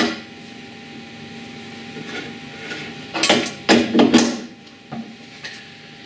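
Knocks and clatter of microwave interferometer parts, a metal reflector plate and plastic horn units, being handled and set down on a wooden baseboard. The knocks come in a cluster about three to four seconds in, with a lighter one near the end.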